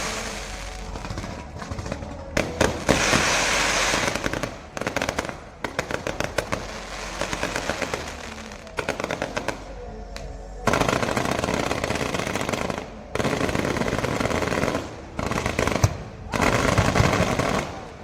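Aerial fireworks bursting and crackling: rapid strings of sharp pops like machine-gun fire, alternating with several long stretches of dense crackle, over music.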